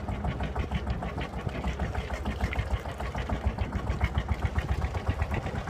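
Sabb 10hp single-cylinder marine diesel running with a steady, rapid knocking beat. It is the engine's first run after three years sitting unused at the dock.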